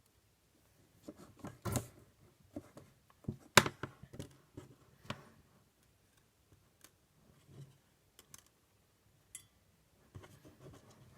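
Scattered small clicks, taps and light scrapes of small objects being handled on a desk during soldering work, the loudest a sharp click about three and a half seconds in.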